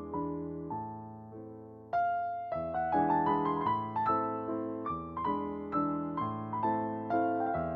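Background piano music: a soft held chord, then from about two seconds in a steady run of struck electric-piano notes.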